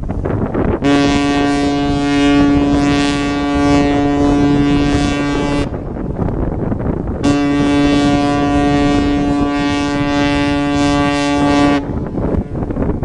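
Cruise ship horn sounding two long blasts of about five seconds each, a steady low tone, with a pause of about a second and a half between them.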